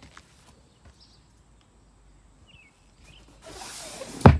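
Mostly quiet with faint ticks, then a brief rustle and a single sharp thump near the end: a boat seat's hinged storage lid dropping shut.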